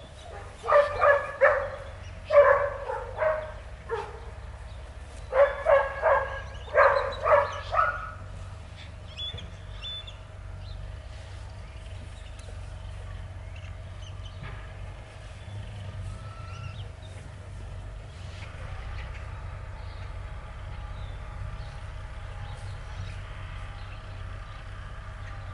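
Belgian Malinois puppy giving short, high yelping barks in quick groups of two or three for about seven seconds, then falling quiet.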